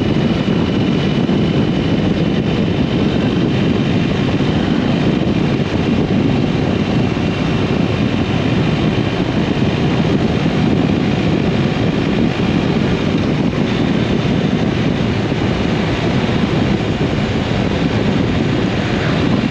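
Steady, heavy wind noise buffeting a camera microphone tucked into a motorcycle rider's jacket at road speed, with the bike's running noise underneath.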